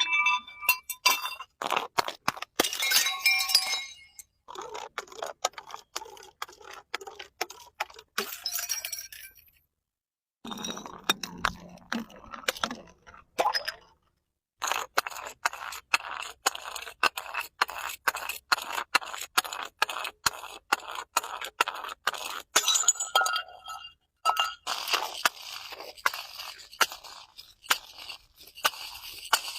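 Rapid runs of sharp cracks, clinks and crunches of glass being broken and crushed, in several short clips cut abruptly one after another.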